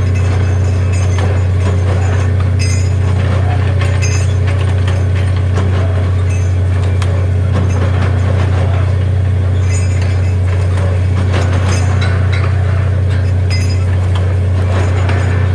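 Borewell drilling rig running steadily under load, a loud, unbroken low engine drone with rattling and clinking from the drilling gear.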